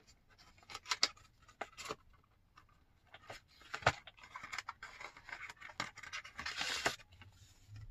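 Small cardboard sleeve and paper leaflets being handled and pulled open by hand: scattered light scratches, clicks and taps, with a longer sliding rub about six to seven seconds in.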